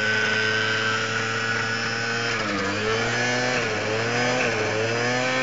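A Piaggio NRG's small two-stroke scooter engine runs at high revs while it smokes heavily. The revs hold steady, then sag and pick up again about three times in the second half.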